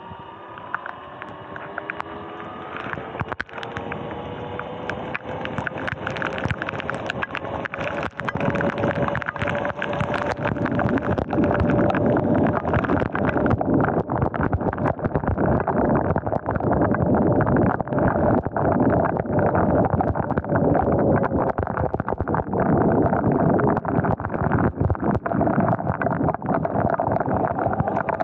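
Electric dirt bike's motor whining as it accelerates, the whine rising in pitch over the first ten seconds or so and then holding steady at speed. Wind and a dense crackle of rain and spray from the wet road run underneath.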